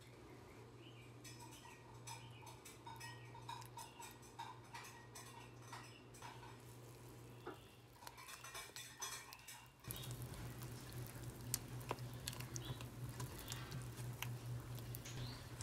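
Silicone spatula stirring a thick, wet oat and whole-wheat flour batter in a glass bowl: soft scraping and squelching with small clicks against the glass, getting louder and busier about ten seconds in, over a faint steady low hum.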